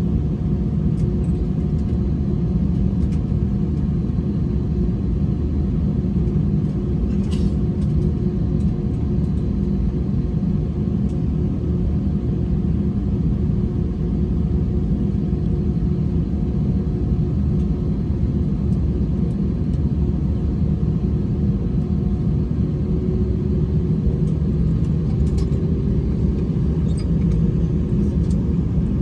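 Steady low rumble with a faint hum inside an Airbus A321's cabin as it taxis to its parking position after landing.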